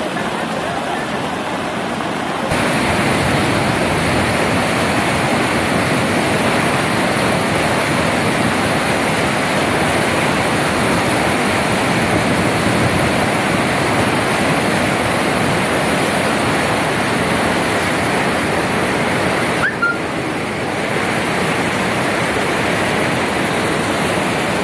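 Floodwater rushing and churning across a road and through a street, a steady loud rush of water that steps up in level about two and a half seconds in.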